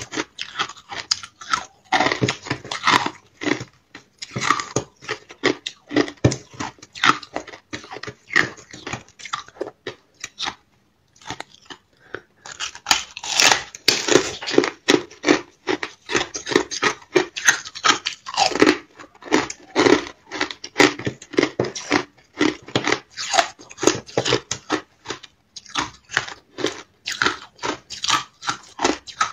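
Thin ice with shaved ice frozen into it being bitten and chewed: rapid, dense crunching and crackling, with a pause of about two seconds near the middle.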